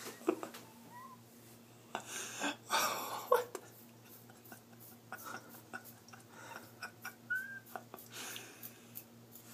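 Stifled laughter: short breathy snorts and a few faint high squeaks, with scattered faint clicks over a steady low hum.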